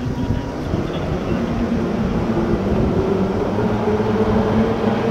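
Rescue boat's outboard motor running steadily, its drone rising gently in pitch.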